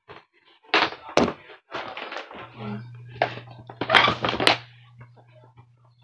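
Rummaging and handling noises: a run of rustles and knocks with sharp clicks about a second in and twice near the middle, while a steady low hum comes in a little before halfway.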